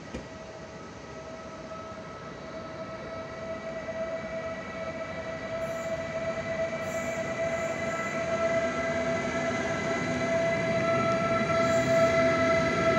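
Siemens Vectron electric locomotive (class 193) hauling a freight train of road trailers approaches and passes, getting steadily louder. It gives a steady whine in several pitches over the swelling rumble of the train, and lower hums join near the end as it draws alongside.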